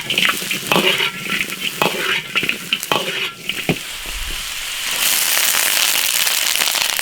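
Lamb pieces sizzling in a hot iron wok as they brown in caramelised sugar, with a spatula stirring and scraping and a few sharp knocks against the pan. About five seconds in, the sizzle swells into a louder, steady hiss.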